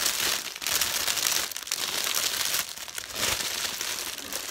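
Clear cellophane wrap crinkling as it is gathered and bunched together by hand, in several spells of rustling with short pauses between them.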